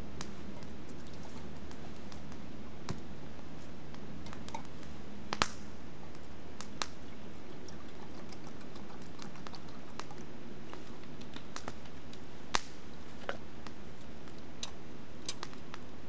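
Swedish fire log burning, crackling with sparse small clicks and pops over a steady low rush. Two sharper pops stand out, about five seconds in and about twelve seconds in.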